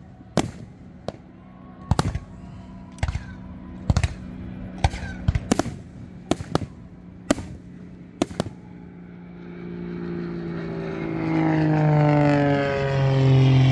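Aerial fireworks shells bursting, about a dozen sharp bangs at irregular intervals. The bangs stop after about eight seconds, and an engine drone comes in and grows steadily louder, its upper tones slowly falling in pitch.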